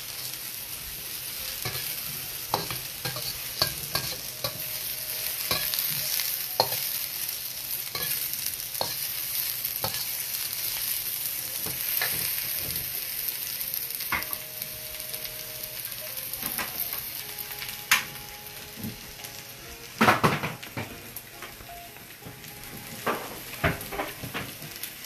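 Diced mushroom, eggplant and zucchini sizzling in oil in a wok while being stirred to brown, the metal ladle scraping and clicking against the wok. There are a few louder knocks in the second half.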